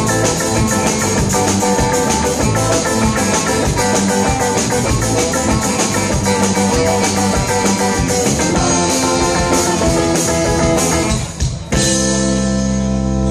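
Live rock band playing: distorted electric guitar, bass guitar, drum kit and saxophone. About eleven seconds in the playing breaks off briefly, then the band hits a final chord that rings out.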